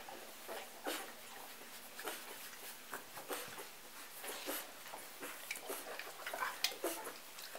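Newborn golden retriever puppies nursing: irregular short suckling smacks, squeaks and grunts.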